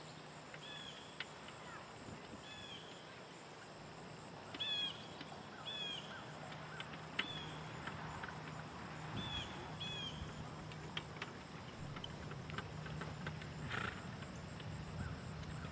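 Donkey trotting on grass while pulling a light two-wheeled cart: faint hoofbeats and small clicks from the cart and harness. Short high chirps come every second or two over a steady low hum.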